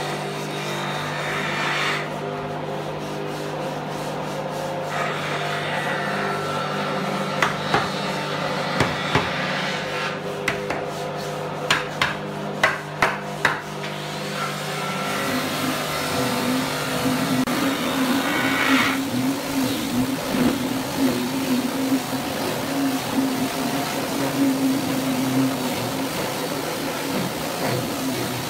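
Hard wooden knocks, about a dozen, as solid-wood door panels and rails are fitted and tapped together, over a steady hum. About halfway through, a louder steady drone sets in.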